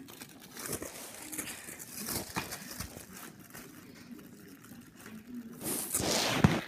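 Handling noise as a plastic DVD case is opened by hand: rustling and rubbing with a few light clicks, then a louder, longer scraping rub near the end as the phone's microphone is covered against the fabric of a bedspread.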